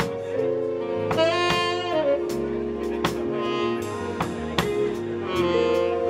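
Live jazz band: a saxophone plays a melody over sustained keyboard chords, while a drum kit keeps a steady beat of about two hits a second.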